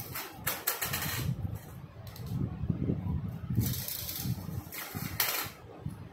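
A round steel tin spinning and rolling on its rim on a hard tiled floor, rattling unevenly as it wobbles, with a louder clatter about five seconds in as it comes to rest flat.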